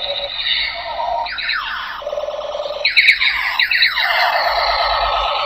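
Electronic sound effects from a transforming tank robot toy's small built-in speaker: warbling tones, then from about a second in a run of quickly repeated falling sweeps.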